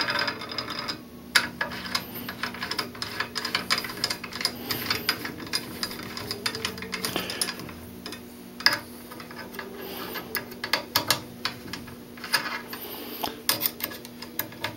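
Irregular small metallic clicks and taps of a hex key turning screws back into the rear of an AR-50 rifle's receiver, with handling knocks of the rifle on a table.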